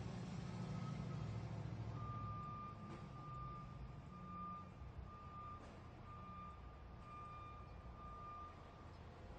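Truck's reversing alarm beeping: repeated beeps of one steady pitch, a little faster than once a second, faint at first and clear from about two seconds in. A low engine rumble underneath fades after the first couple of seconds.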